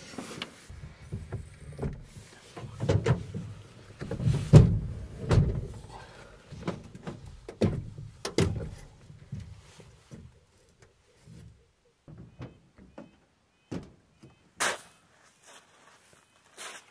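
Knocks, thumps and rustling of a person crawling out of a sleeping bag and climbing out the back of a pickup truck canopy over its wooden sleeping platform. After about ten seconds it goes much quieter, with only a few scattered sharp clicks.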